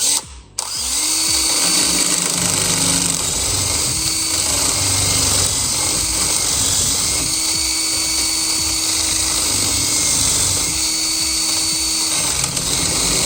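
Power drill boring into a lock cylinder with a larger bit. A brief trigger blip comes first, then the drill runs steadily for about twelve seconds, its motor tone breaking off and returning several times.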